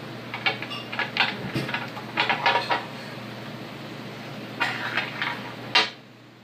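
Light clicks and taps in quick clusters as small glass nail-polish bottles and fingernails are handled, with one sharper click near the end as a bottle is picked up by its cap.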